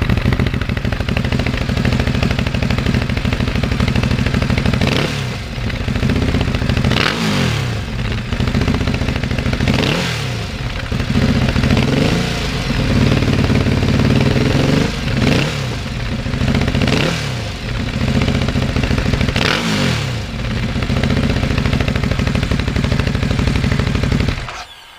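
Ducati Hypermotard 939 SP's Testastretta L-twin engine running loud through an aftermarket SC Project carbon high-mount exhaust, idling between about six quick throttle blips that rev it up and let it fall back. The engine is switched off near the end.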